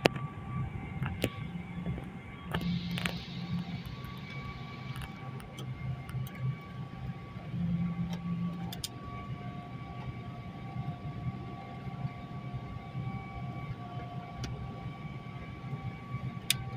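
Steady airliner cabin drone of engines and airflow heard from a passenger seat, with a few short clicks scattered through it.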